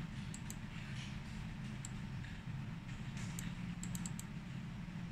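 Light, scattered clicks from working a laptop, a few single and several in quick pairs like double-clicks, over a steady low hum.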